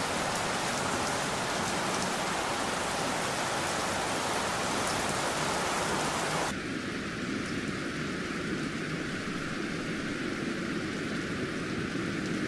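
Steady rain falling. About six and a half seconds in, it turns duller and lower, with much less hiss, like rain heard from inside a room through a window.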